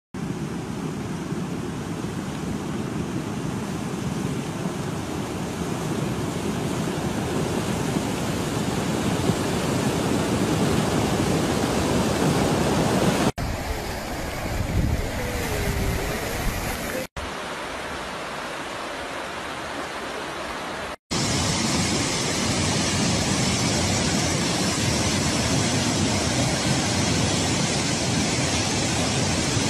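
Flash-flood water rushing, a steady noise that grows louder over the first dozen seconds, then breaks off abruptly between separate clips of the flood. The last clip, a torrent pouring down a rocky slope, is the loudest and most even.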